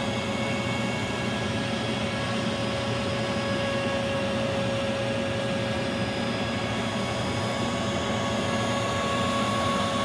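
A small 3040 CNC's router cutting a pine board, its steady whine over the constant rush of a shop vac drawing the dust away through the dust shoe.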